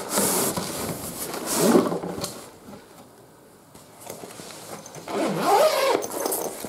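Scraping and rustling as a travel tripod is handled and worked out of its carry bag, in two spells with a quiet moment between, and a short vocal sound near the end.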